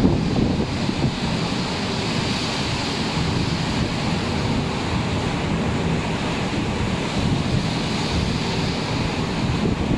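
Rough, stormy sea rushing and breaking alongside a ship, with strong wind buffeting the microphone in a steady, gusty rumble.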